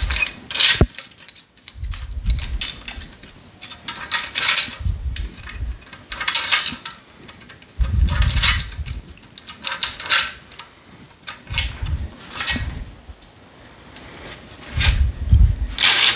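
Rough tennis string being woven by hand through the main strings of a racket, pulled across in repeated short swishing zips every second or two, with low thuds from hands handling the racket frame.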